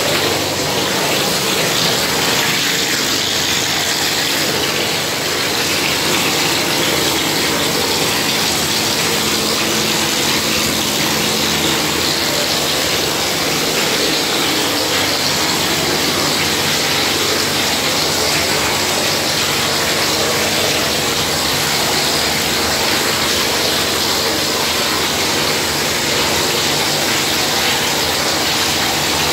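Plastering machine running: a steady, loud rushing hiss with a faint low hum underneath, unbroken throughout, from the machine's pump and compressed air feeding gypsum plaster to the spray hose.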